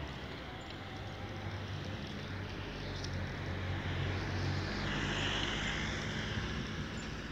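Engine hum and road noise from a moving vehicle, heard from on board, with a louder rushing hiss for a second or two past the middle.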